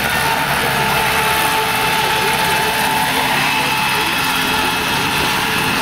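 Large radio-controlled scale model of an AS 332M1 Super Puma helicopter flying low and hovering just above the ground. Its rotors and drive make a steady whine with a constant high tone.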